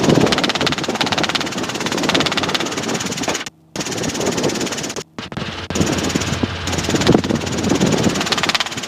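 Robinson R22 helicopter in flight: steady engine and rotor drone in the cockpit with a fast fine pulsing. The audio cuts out briefly twice, once about three and a half seconds in and again about five seconds in.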